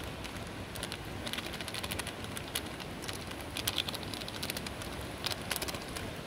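Wood fire crackling under a skillet of steaming fish: scattered sharp pops and crackles over a steady hiss.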